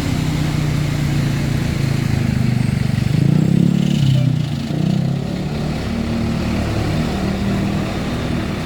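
A road vehicle's engine running and going by close, swelling to its loudest about three to four seconds in, with traffic noise around it.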